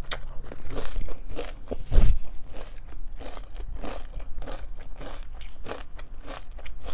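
Close-up crunching and chewing of crisp breakfast cereal in milk, a crunch about every half second, with one louder low thump about two seconds in.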